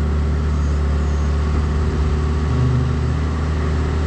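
Bobcat 331 mini excavator's diesel engine running steadily while it works its boom and hydraulics to lift a header, briefly louder about two and a half seconds in.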